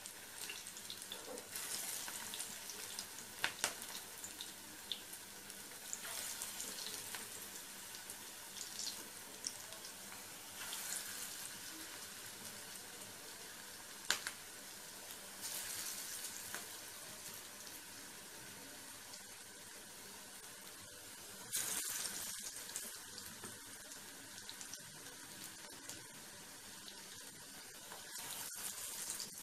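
Masoor dal pakoras deep-frying in hot oil over a low gas flame: a steady sizzle that flares up louder every four to six seconds as another dollop of batter drops into the oil. A couple of sharp clicks stand out.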